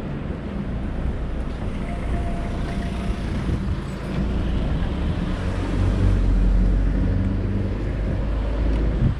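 City street traffic: a motor vehicle's engine running with a steady low rumble, swelling about two-thirds of the way through, with wind buffeting the microphone.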